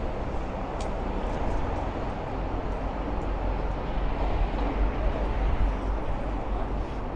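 Busy city street ambience: a steady low rumble with the voices of passers-by mixed in, growing a little louder in the second half.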